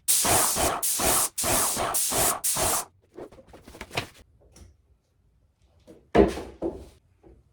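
Graco Magnum X5 airless paint sprayer's gun spraying paint in a run of hissing bursts with short gaps, which stop about three seconds in. A single loud thump follows about six seconds in.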